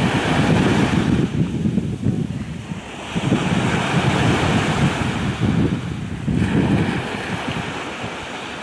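Wind buffeting the microphone in irregular gusts, over the hiss of sea waves washing in and out.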